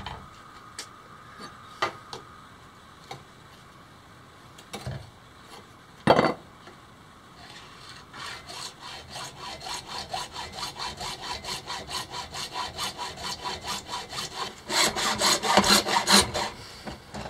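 Hacksaw cutting a rusty metal pipe by hand. A few scattered taps and one sharp knock come first, then steady, rapid back-and-forth sawing strokes start about seven seconds in and get louder near the end.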